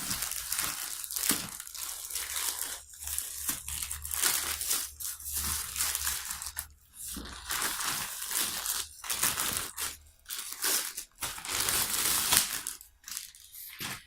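Product packaging being torn open and handled: irregular crinkling, crunching and tearing that dies away near the end.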